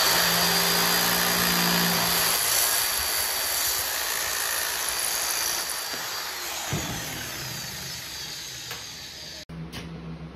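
Handheld electric sheet-metal cutter running as it cuts sheet-steel cone segments for a two-stroke expansion chamber. A steady motor whine with a high tone holds for about six seconds, then tapers off as the sound fades, with a single knock about seven seconds in.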